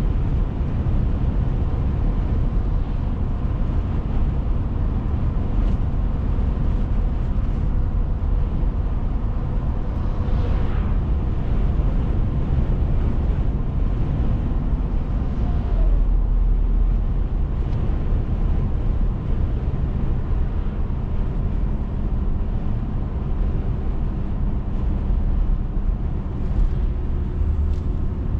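A car being driven, heard from inside: a steady, low rumble of engine and tyre noise.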